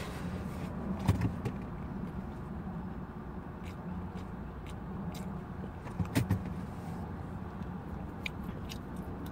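Chewing and wet mouth clicks from someone eating a fried chicken sandwich, a few scattered clicks with the loudest about six seconds in. Underneath is a steady low hum inside the car's cabin.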